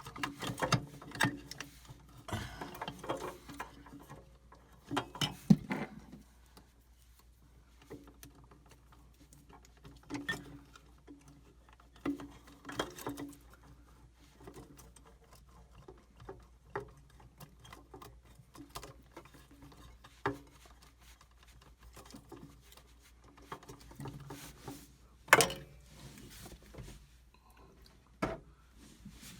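Scattered small clicks, taps and rustles of hands working a plastic PTC start relay off the two pins of a mini-fridge compressor, with a couple of sharper knocks about five and twenty-five seconds in.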